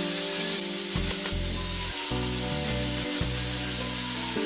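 Angle grinder fitted with a sanding sleeve, sanding the curved wooden end block of a stair handrail: a steady abrasive hiss of grit on wood, with background music playing under it.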